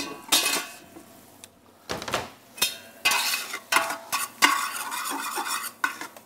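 Sliced green olives slide off a plastic cutting board into a stainless steel pot of mushrooms frying in butter and oil. A metal spoon then stirs them, scraping and clinking against the pot, over a light sizzle.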